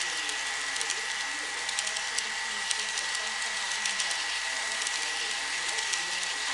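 Model freight train of trailer-carrying flatcars rolling past, its wheels clicking irregularly over the track joints above a steady hiss and a thin steady high tone.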